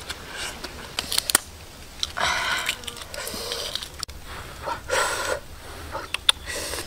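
Close-up eating sounds of a person biting and chewing a boiled duck egg: small sharp clicks and smacks of the mouth, with two loud breathy puffs of air about two and five seconds in.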